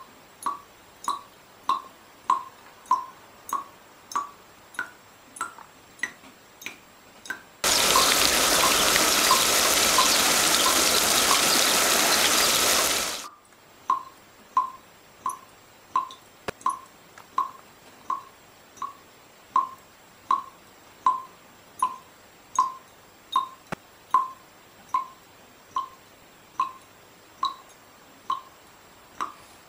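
Water dripping at a steady pace of about two drops a second, each a short plink, some rising in pitch. About a quarter of the way in, a loud rushing hiss like running water takes over for about five seconds and then stops abruptly, and the dripping carries on.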